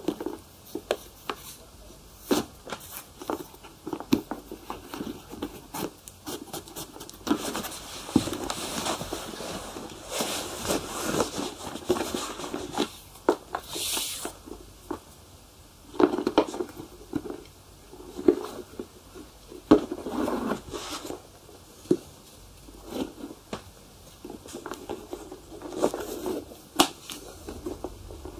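Shoe polishing by hand: irregular rubbing and brushing strokes on leather, with scattered light clicks.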